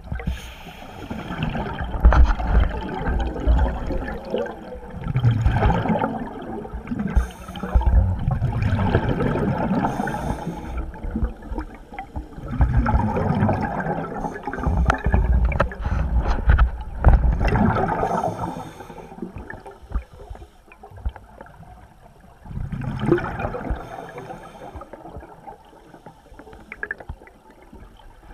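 Scuba regulator breathing heard underwater: exhaled air bubbling out in rushing, gurgling bursts every few seconds, with quieter gaps between, and a longer quiet stretch near the end broken by one more burst.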